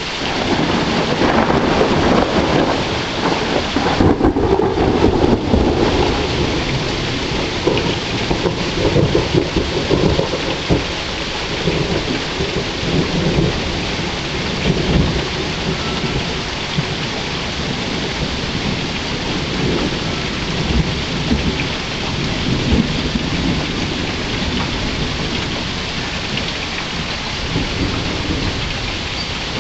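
Steady rain falling, with a rumble of thunder that swells and is loudest in roughly the first ten seconds.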